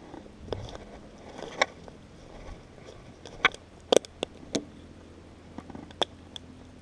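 Footsteps on a trail: irregular crunching steps and sharp snaps, the loudest cluster a little before halfway through.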